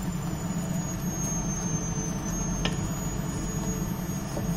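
Steady low hum of a running motor, with one light knock a little past halfway through.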